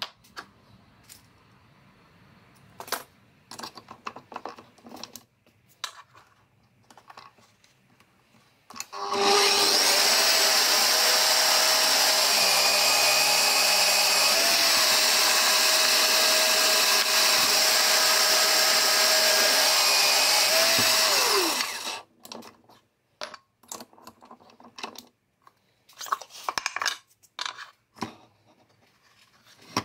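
Bosch benchtop drill press motor running for about twelve seconds as a wide bit bores into a plywood block, with a steady whine that falls away as it is switched off. Light clicks and knocks of handling on the metal table before and after it.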